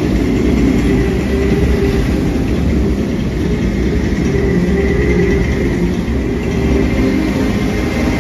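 Jet ski engine running hard and steady, pumping water up a hose to a flyboard, with the rush of the water jets.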